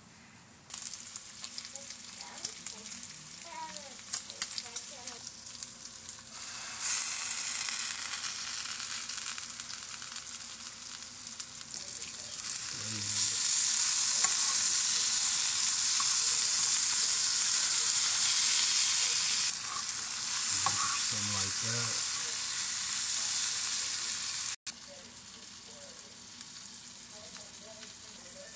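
Food frying in hot oil, a steady sizzle while a utensil stirs: sliced peppers and tomatoes sautéing in a frying pan, loudest through the middle. Near the end, bacon frying more quietly in a cast-iron skillet.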